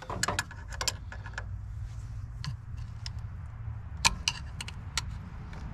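Metal hand tools, pliers and a screwdriver, clicking and clinking against the diesel injection pump as it is pried at. There is a cluster of light clicks in the first second and a sharper clink about four seconds in, over a steady low rumble.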